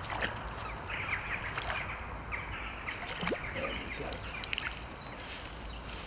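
Riverbank outdoor sound with small birds chirping, and light splashing of water as a grayling is drawn into a landing net and lifted out.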